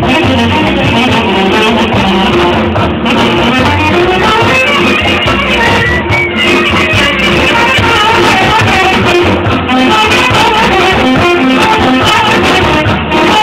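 Live band music led by a saxophone playing quick melodic runs over a steady beat, loud throughout.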